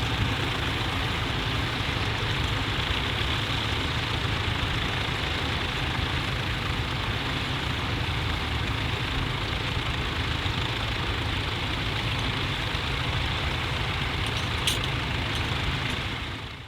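Tractor engine running steadily, fading out near the end.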